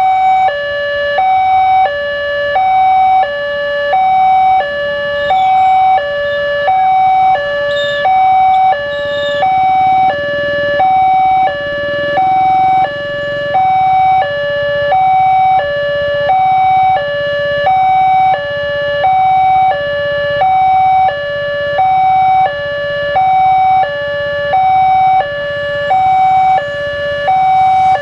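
Railway level-crossing warning alarm: an electronic tone alternating steadily between a higher and a lower pitch, about a second and a half per high-low cycle. It is the crossing's warning that a train is coming, sounding while the barrier is down.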